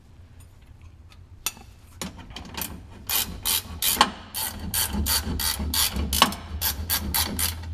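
Ratchet wrench clicking as a fastener is run onto the new lower shock bolt. A steady run of sharp clicks, about three a second, starts about two seconds in.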